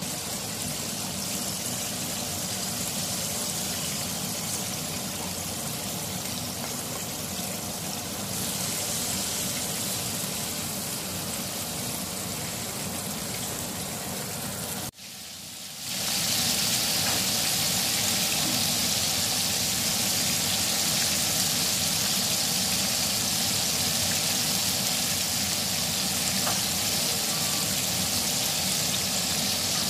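Breaded chicken deep-frying in a pan of hot oil: a steady sizzle with a low hum underneath. It cuts out for a moment about halfway through and returns louder and more hissing.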